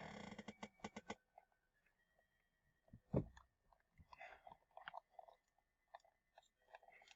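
Faint handling noises from a toy singing dog being put back together: a quick run of clicks and crackles at the start, scattered small clicks, and a dull knock about three seconds in.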